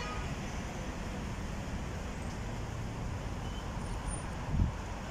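Steady street traffic noise from passing cars, with a brief low thump about four and a half seconds in.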